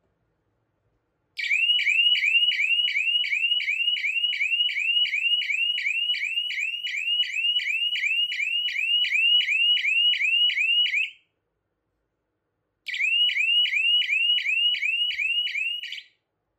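Small electronic horn siren of a rain-sensor alarm sounding a fast, repeating rising whoop, about three sweeps a second, set off by water on the sensor plate. It starts about a second and a half in, cuts off after about ten seconds, then sounds again for about three seconds near the end.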